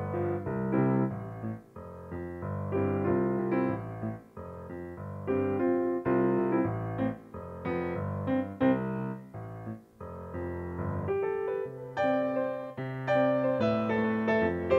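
Piano being played: a flowing passage of chords and melody notes, each struck and left to ring, growing brighter with higher notes near the end.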